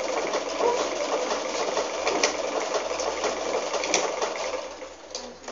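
Electric sewing machine running steadily as material is stitched, then stopping near the end.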